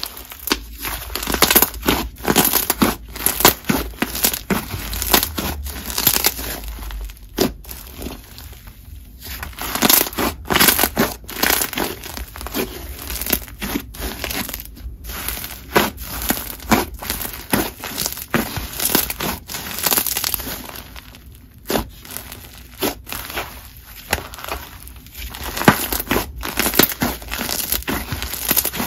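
Chewy clay fizz slime, a clay slime mixed into snow fizz, being stretched, folded and pressed by hand: dense crackling and popping sizzles as trapped air bursts, in quick clusters with a couple of brief lulls.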